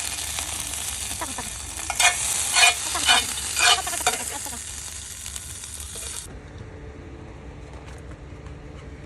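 Food sizzling in oil in a frying pan, with four louder stirring or scraping strokes of a utensil in the pan between about two and four seconds in. The sizzle cuts off suddenly about six seconds in.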